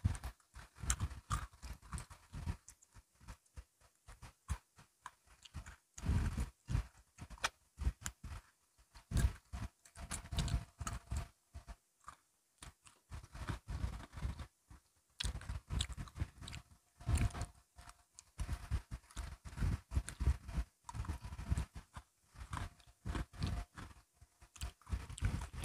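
Close-miked crunching and chewing of crisp biscuit sticks: irregular bites and chews with short pauses between them.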